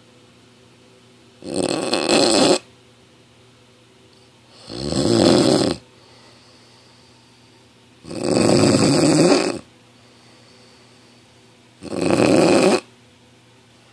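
Snoring: four loud snores about three and a half seconds apart, each lasting about a second, with quiet breathing pauses between them.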